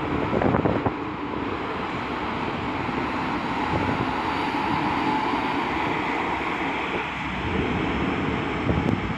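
Wind buffeting the microphone, in gusts near the start and near the end, over the steady running of a DB class 143 electric locomotive hauling a double-deck regional train along the platform tracks, with a faint whine from the locomotive in the middle.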